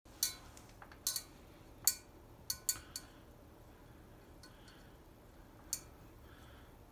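A hand stirring dog food in a stainless steel bowl, the food and fingers clinking against the metal with a short ring: a quick run of clinks in the first three seconds, then one more near the end.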